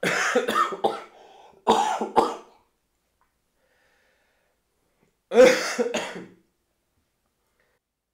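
A man coughing in three bouts, the first a quick run of coughs, the last about five seconds in. The cough is brought on by a very spicy soup that is burning his throat.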